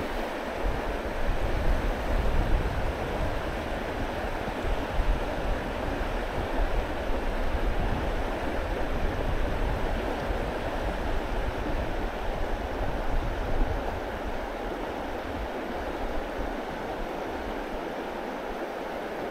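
Stream water rushing steadily, with wind rumbling on the microphone at times.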